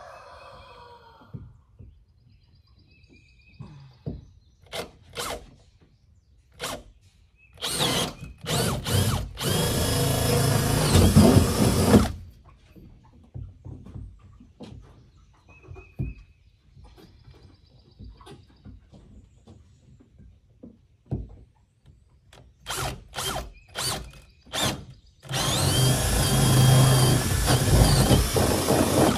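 Cordless drill boring pilot holes through the coop's wooden wall siding. There are a few short bursts, then a run of about four seconds; the same pattern repeats near the end.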